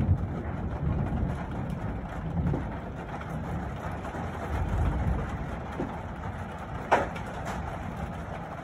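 Steady rain falling during a hailstorm, with low rumbling swells and a single sharp tap about seven seconds in.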